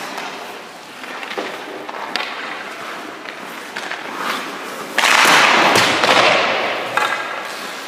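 Hockey goalie's skates and pads scraping on rink ice, with a few sharp knocks early on. About five seconds in, a sudden loud scrape lasting about a second and a half as the goalie drops and slides across the crease to the post.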